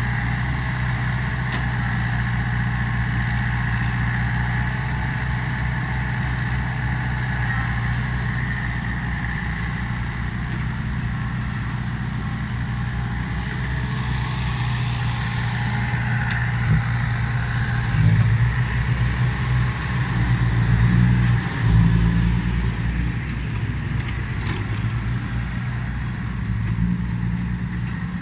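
Komatsu crawler excavator's diesel engine running steadily while it digs and loads soil, the engine note rising and falling several times in the second half as the arm works.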